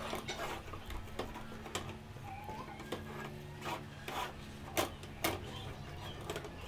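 Wooden spoon stirring and scraping thick, cooking flour dough in an aluminium pot, with irregular knocks of the spoon against the pot.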